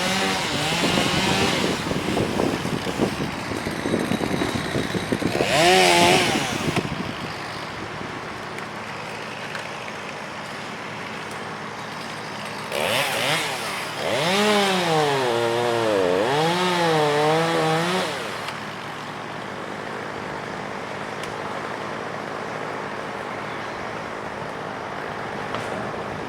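Chainsaw revving in bursts, its pitch swinging up and down, briefly about six seconds in and again for about four seconds from fourteen seconds in, over a steady outdoor hiss.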